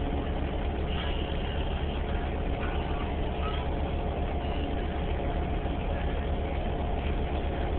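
Interior drone of a New Flyer Xcelsior XDE40 diesel-electric hybrid transit bus heard from inside the passenger cabin: a steady low rumble with a steady higher hum above it.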